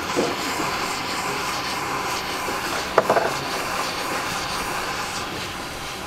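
Hot air rework station blowing at full air flow, a steady hiss, while it heats a phone board's plastic hybrid SIM card connector to lift it off. A single sharp click about three seconds in.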